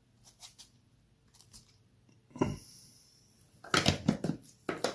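Stainless steel watches being handled and set down on a surface: a few light clicks and taps, a thud about two and a half seconds in, then a quick run of louder clicks and knocks near the end.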